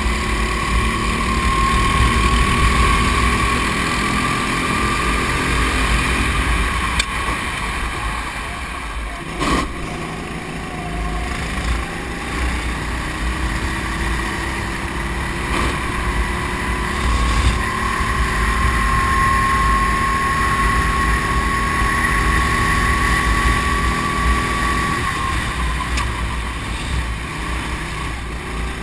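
Go-kart engine heard onboard at racing speed, its pitch climbing steadily along the straights and dropping as the throttle comes off for corners, about a third of the way in and again near the end. A low rumble of wind and track runs under it, with a single thump about a third of the way in.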